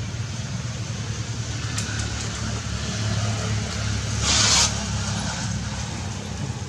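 Steady low engine-like hum, with one brief loud hiss a little past the middle.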